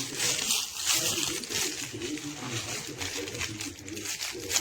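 Plush dog toy rustling and crinkling as it is handled and played with, with short irregular crinkly noises throughout.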